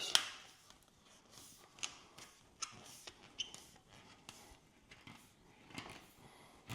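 Magnetic seal strip being slid onto the edge of a glass shower door and pressed into place: scattered light clicks and taps with soft rubbing, the sharpest click just after the start.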